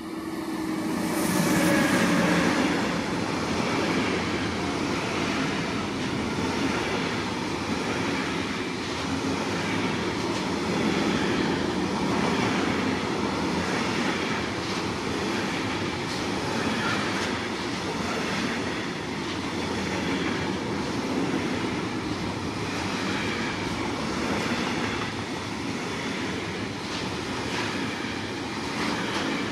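A long freight train passing close by at speed. The locomotive goes by loudest about a second or two in, then the wagons keep running past with a steady rolling noise and regular clacks of the wheels over the rail joints.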